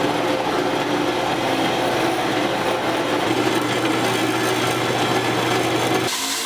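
A shop power tool running steadily while working steel, with a constant low hum under a rough grinding noise; the sound changes abruptly near the end.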